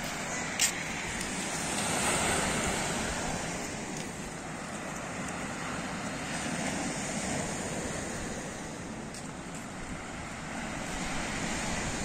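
Black Sea surf washing in on a sandy beach, a steady rush swelling a little about two seconds in, with wind on the microphone. A single short click comes in the first second.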